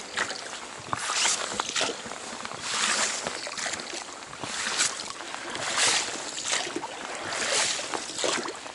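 Oars of a one-person Bark 210 inflatable rowing boat pulling through the water: a swishing splash about every second and a half to two seconds, with light knocks between the strokes.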